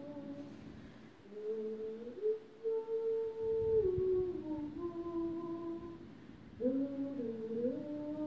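A woman humming a slow lullaby without words. She holds long notes about a second each and slides between pitches, with a brief pause about six seconds in.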